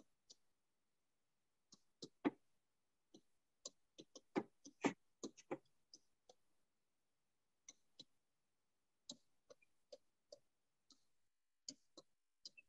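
Faint, irregular clicks and taps of a pen tip striking a touchscreen display as equations are written on it, in clusters with short silent gaps between strokes.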